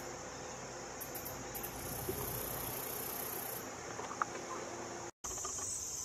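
Steady high-pitched chorus of crickets and other insects, with a still higher strand of it fading out partway through; the sound cuts out for an instant near the end.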